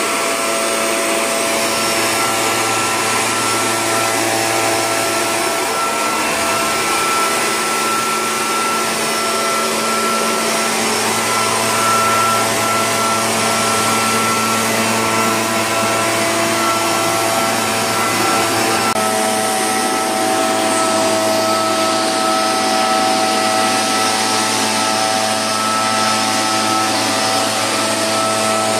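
Cifarelli-engined backpack power mist blower, its two-stroke engine running steadily with the rush of the blower fan as it sprays a fine disinfectant mist. The engine tone shifts slightly about two-thirds of the way through.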